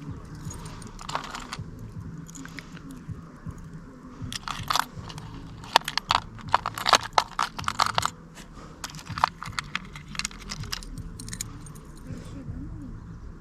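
A flurry of sharp clicking and clinking from small hard objects being handled, thickest about halfway through, with a few scattered clicks later.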